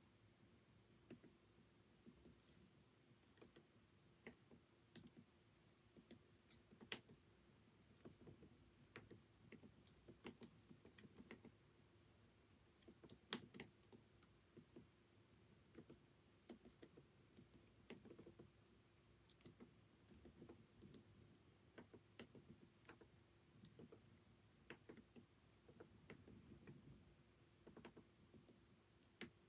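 Faint typing on a computer keyboard: irregular, quick keystrokes throughout, with a couple of sharper, louder key hits, over a faint steady hum.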